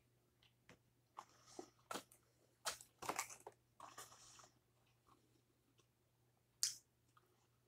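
Faint scattered rustling and crackling of a cardboard fries carton being picked up and handled, with quiet chewing; one sharp crackle near the end.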